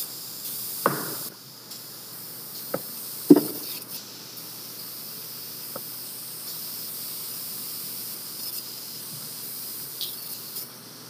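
Steady faint hiss of an open microphone, with a few sharp clicks, the loudest about three seconds in.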